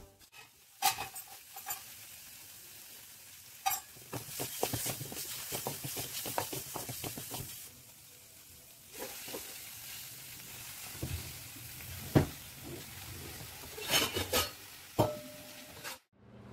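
Chopped onions and curry leaves sizzling in oil in a metal pan, with a steel spoon stirring and scraping against the pan in scattered clicks, busiest a few seconds in and again near the end.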